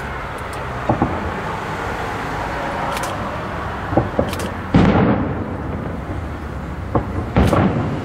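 Aerial fireworks exploding: a series of sharp bangs, the loudest about five seconds in, over a continuous rumble of the display.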